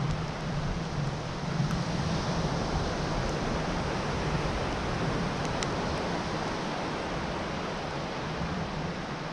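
Sea surf and wind on a beach: a steady rush of noise with no distinct events.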